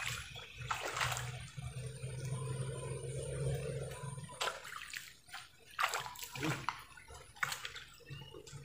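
Shallow swamp water sloshing around wading feet, with several short sharp splashes.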